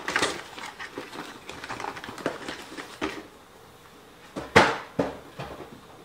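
Cardboard packaging being handled: scattered rustles, scrapes and light knocks, with one louder rustle about four and a half seconds in.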